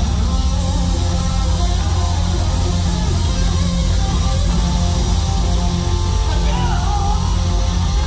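Live rock band playing: electric guitar over bass and drums, with bent guitar notes a few seconds in.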